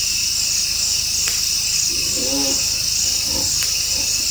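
A steady, loud chorus of crickets and other night insects, shrilling high and unbroken. A brief low, voice-like call comes about two seconds in.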